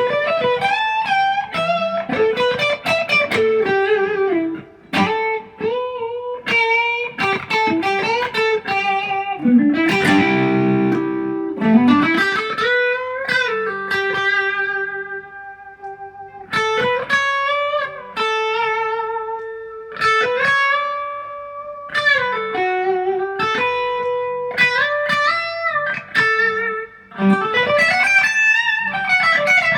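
ESP LTD EC-256 electric guitar playing lead lines: single notes with string bends and vibrato on held notes, and a strummed chord about ten seconds in.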